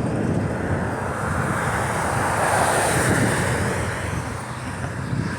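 Steady rumbling background noise with a hiss over it, swelling slightly in the middle and easing a little near the end.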